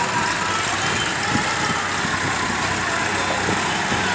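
Diesel farm tractors running as a line of them, each pulling a loaded trailer, drives past close by, a steady engine sound.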